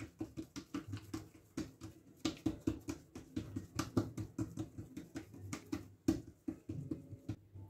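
Hands patting and pressing a piece of rghaif dough flat on a wooden worktop: a quick, uneven run of soft slaps, several a second.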